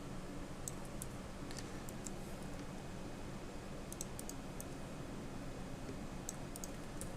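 Light, scattered clicks of a computer mouse and keyboard, coming in small clusters, over a steady low hum.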